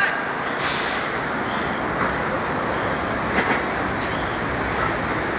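Steady road traffic noise, with a brief high hiss about a second in and a fainter one later on.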